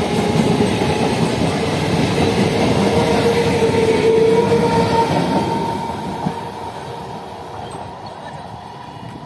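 Electric multiple unit local train coaches running past close by, with a steady whining tone over the running noise. The sound fades away from about six seconds in.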